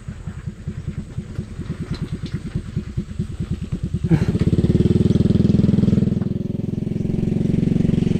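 A small engine putters at a low, even rhythm, then speeds up and gets markedly louder about four seconds in, holding a steady, busier running sound.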